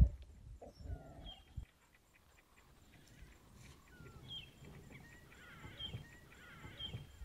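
Quiet bush sound of scattered short, high chirping calls and some soft rustling, opened by a single sharp low thump.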